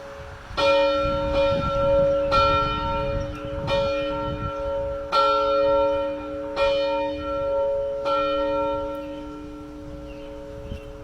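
A single church bell rung in steady strokes, six strikes about a second and a half apart, each leaving a lingering hum. After the last strike, about eight seconds in, the ringing dies away.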